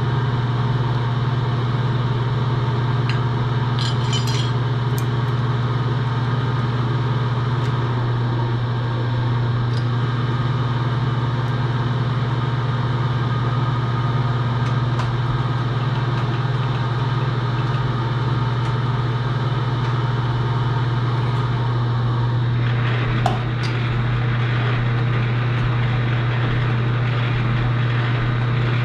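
A metalworking machine's electric motor running steadily with a strong, even low hum. A few light metallic clinks sound about four seconds in, and a sharper clink comes a little past two-thirds of the way through.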